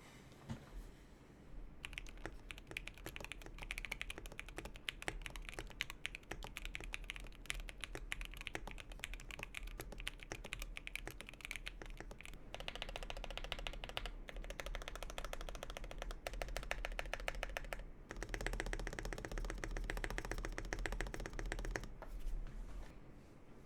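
Mechanical keyboard with lubed switches being typed on quickly, a dense stream of key clacks starting about two seconds in and stopping shortly before the end, the typing pattern shifting twice along the way.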